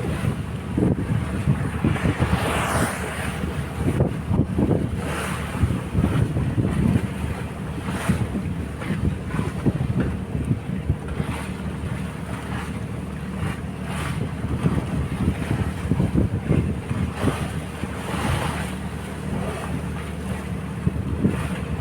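Strong wind buffeting the microphone in uneven gusts, over the wash of sea waves.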